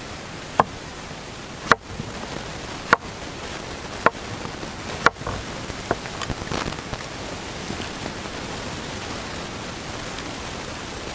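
Pork pieces sizzling in a hot wok, a steady hiss that gets a little louder a couple of seconds in. Sharp clicks come about once a second over the first six seconds.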